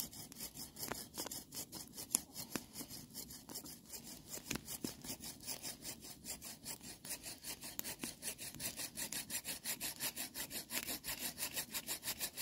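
Hand saw cutting through a green log in quick, even back-and-forth strokes, several a second.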